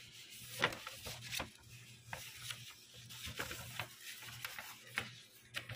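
Irregular clicks and short rubbing scrapes, about a dozen spread unevenly, over a faint steady low hum.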